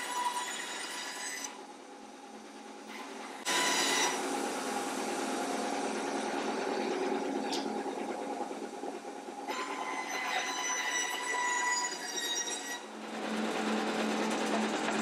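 Band saw running and cutting through a thick oak slab as it is fed along a curved line: a steady whine from the blade and motor over the rasping of the cut. The sound changes abruptly a few times, loudest from about three and a half seconds in.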